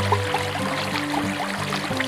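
Background music of held low notes that change in steps, over the steady babble and gurgle of a small river.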